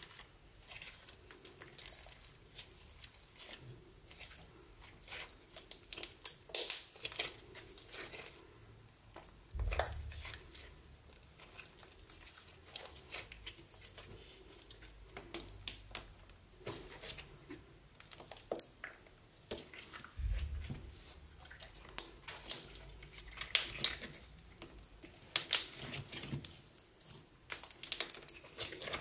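Sticky slime being pressed and poked, giving irregular crackling, tacky pops and small tearing sounds, with two dull low thumps about a third and two thirds of the way through.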